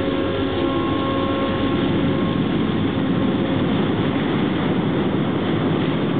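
Large container ship moving past at close range: a steady rumble and wash of noise from its machinery and the water along the hull. A hum of a few steady tones fades out about two seconds in.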